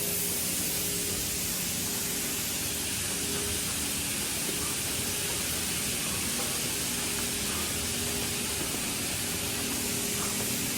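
Steady hiss of a pressure washer spraying water, with a faint low hum underneath.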